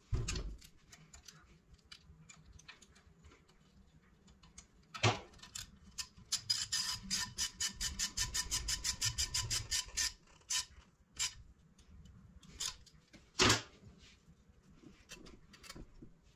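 Hand ratchet clicking steadily, about seven clicks a second for some three seconds, as it turns the nut on a turbocharger's wastegate actuator rod. Sharp knocks and clatter of the metal tool and parts being handled, loudest once before the ratcheting and once after.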